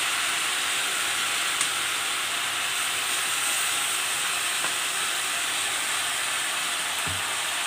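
Steady sizzling hiss of sauce-coated fried chicken, onion and capsicum cooking in a hot kadai, with a faint tick about one and a half seconds in and a short low knock near the end.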